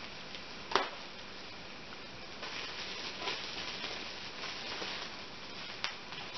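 A sharp click of scissors a little under a second in. Then thin plastic wrapping crinkles and rustles as hands work it open around a small doll, and another sharp click comes near the end.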